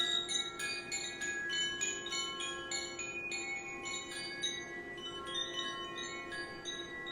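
Koshi chime tinkling, many bright ringing notes of different pitch struck in quick, irregular succession, over a steady held tone underneath.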